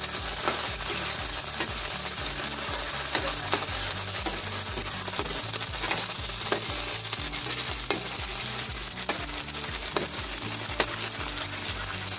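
Canned sardines in tomato sauce sizzling in a nonstick frying pan on a gas stove. A ladle stirs them, scraping and tapping the pan every second or so.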